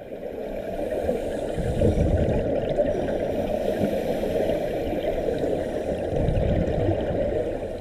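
Muffled rushing and gurgling water noise with the highs cut off, typical of a camera in a waterproof housing recording underwater. It swells louder about two seconds in and again near the end.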